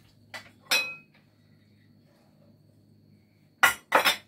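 A utensil clinking against a mixing bowl: a small click, then a sharp clink that rings briefly a little under a second in, and two quick knocks near the end.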